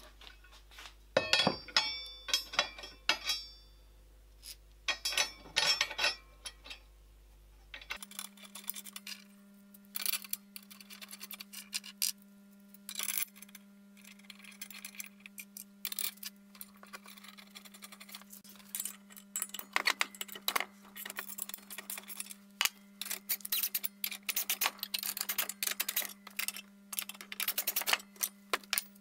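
Steel plate and bolts handled against an electric motor's steel face: irregular metallic clinks and knocks as nuts, washers and studs are fitted. A ringing clank of the plate a second or two in, and a faint steady hum underneath from about a quarter of the way through.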